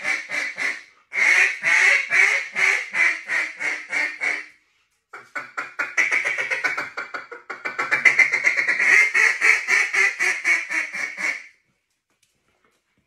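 Halos Calls duck call blown in a competition calling routine: strings of rapid quacks in several runs with short breaks between them, stopping shortly before the end.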